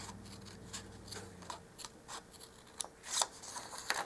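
Small scissors snipping through a printed paper kit sheet: a run of short, irregular snips, the two loudest near the end.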